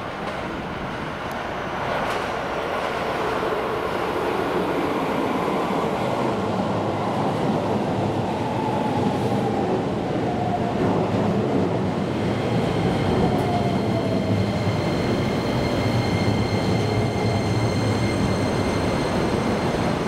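Keisei 3000-series electric commuter train pulling into the platform and slowing to a stop. The wheels rumble on the rails and grow louder, a whine falls in pitch midway as the train slows, and steady high whining tones hold through the second half.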